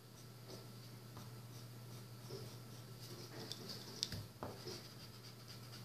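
Pencil drawing on paper: faint, irregular scratching strokes, with a light tap about four seconds in and a steady low hum beneath.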